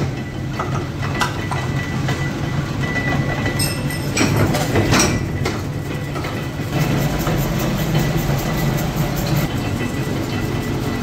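Belt-driven workshop machinery running: a steady low hum with irregular metallic clicks and clatter, and a few louder knocks about four to five seconds in.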